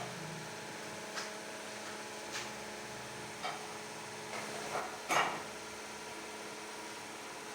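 Steady electrical hum with a handful of short light knocks and clicks spread through it, the loudest a little after five seconds in.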